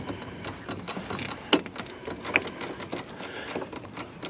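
Caravan jockey wheel being wound down by its handle, the winding mechanism clicking in a steady run of about five clicks a second with a couple of louder knocks, as the wheel takes the caravan's weight.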